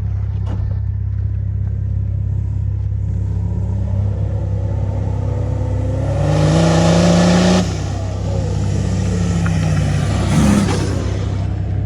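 Off-road 4x4 engine over a constant low drone, revving up over a few seconds and then easing off. A loud hissing rush about six seconds in peaks with the revs, and a shorter one follows near the end.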